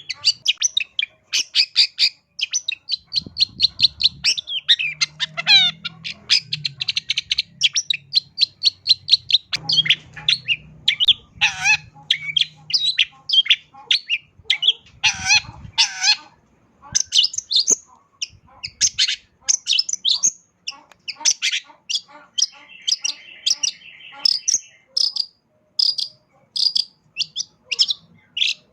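Long-tailed shrike singing a fast, varied song of sharp chattering notes, packed with phrases mimicked from other birds, with a short buzzy trill about three quarters of the way through.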